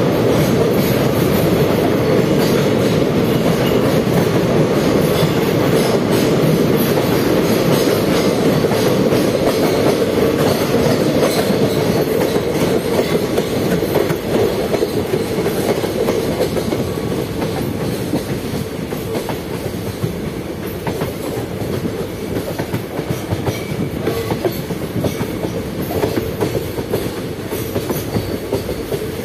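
A train running on the rails: a steady rumble of wheels with clickety-clack over the rail joints. It eases a little about halfway through.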